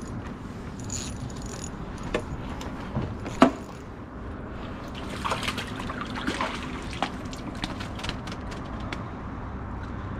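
Water sloshing and splashing at the side of a pontoon boat, with a few sharp knocks in the first few seconds and a spell of quick splashy clicks around the middle.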